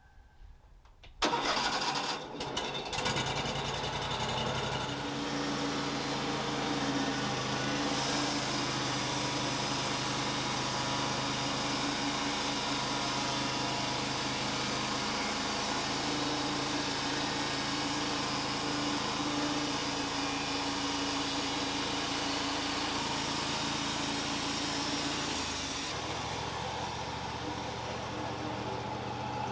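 Wood-Mizer LT35 band sawmill's engine starting about a second in, then running steadily. Its sound drops and changes near the end.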